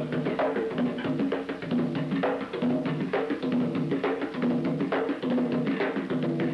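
Capoeira music: percussion playing a steady rhythm of quick struck notes over repeated low pitched tones.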